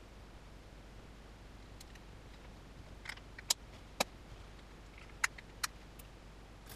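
A handful of small, sharp plastic clicks from a car key fob case being handled and fitted together, about six of them spread over the second half.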